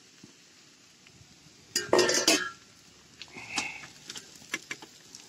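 Pan of fried potatoes and diced onion being stirred with a spatula: a short loud metallic clatter about two seconds in, a brief ringing note about a second later, then light clicks and scrapes.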